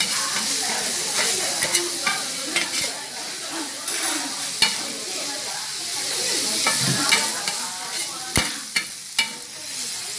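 Fried rice frying on a hot round dakgalbi griddle pan while a spatula stirs and chops it, a steady sizzle under many quick clicks and scrapes of the spatula on the pan, with one louder knock about eight seconds in.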